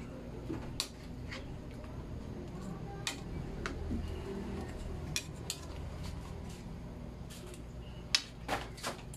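Metal spatula clinking and scraping against stainless steel pans while coconut milk is stirred and spooned over fried fish: irregular sharp clinks every second or two, with a quick cluster of three near the end.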